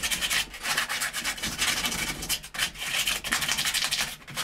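Sandpaper rubbed by hand along a pipe in quick, repeated back-and-forth strokes, scuffing the surface clean so it can be joined.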